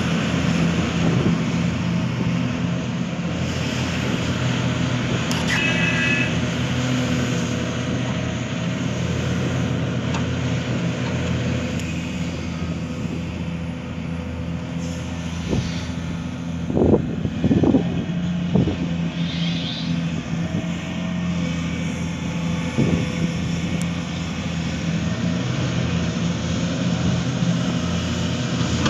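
Hitachi Zaxis 490 LCH excavator's diesel engine running steadily while digging. About two-thirds of the way through, a few heavy knocks stand out over the engine.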